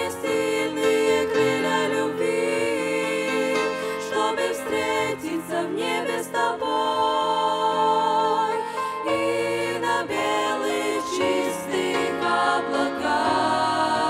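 A small group of young women singing together in close harmony, with piano accompaniment under them.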